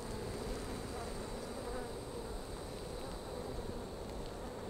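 A mass of honey bees buzzing steadily around an opened hive.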